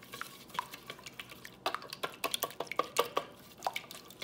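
A whisk beating a runny egg mixture in a ceramic bowl, with rapid clicks and taps of the whisk against the bowl. The clicks come thicker and louder in the middle.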